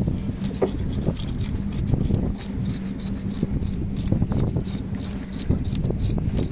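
Knife scraping scales off a fresh fish on a boat's wooden deck, in quick repeated strokes, several a second, over a steady low rumble and hum.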